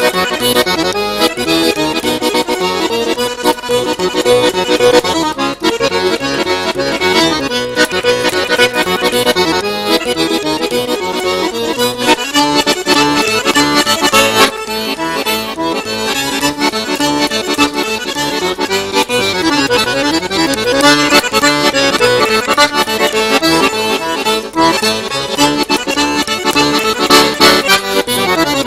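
Piano accordion played solo: continuous music with quick runs of notes over sustained chords.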